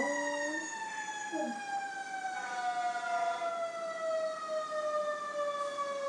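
Fire truck siren winding down: one long tone that slowly falls in pitch.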